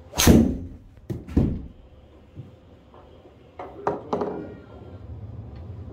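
A driver swung at a teed golf ball in an indoor simulator bay: a loud sharp impact near the start, then two more sharp knocks within the first second and a half as the club strikes the ball and the ball thumps into the screen. A few lighter knocks follow about four seconds in.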